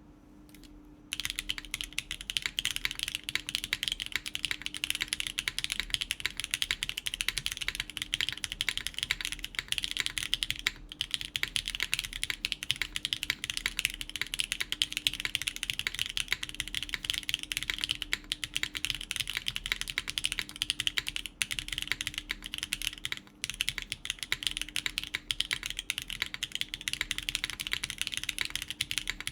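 Continuous fast typing on a gasket-mounted Gundamhaku mechanical keyboard fitted with factory-lubed BSUN Tai Chi tactile switches, an FR4 plate and GMK keycaps, a dense run of key clacks that starts about a second in.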